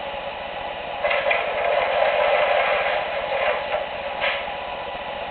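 Sound effects from MTH O-gauge model subway trains standing in the layup: a steady mechanical hum that grows louder about a second in and eases off after about three and a half seconds, with a couple of short clicks near the end.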